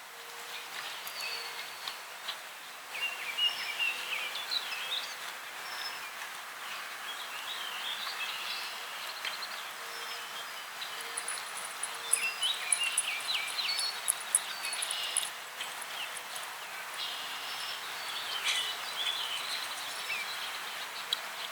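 Several small birds chirping and warbling in short, overlapping phrases over a steady outdoor hiss. A rapid, very high-pitched ticking trill runs for a few seconds mid-way.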